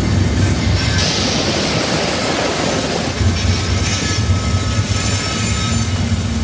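CSX diesel locomotives passing close by: a steady low engine drone over the rumble of wheels on the rails, with a hiss lasting about two seconds that starts about a second in.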